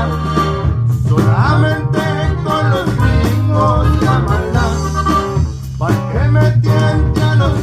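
Instrumental passage of a Mexican regional corrido played by a band: plucked guitar melody lines over a strong, steady bass.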